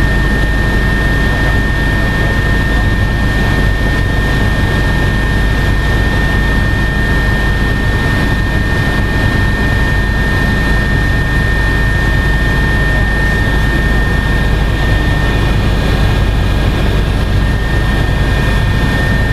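Cabin noise of an Agusta A109S Grand twin-turbine helicopter in cruise flight, heard inside the cockpit: a steady, even drone of engines and rotor with a high, steady whine over it.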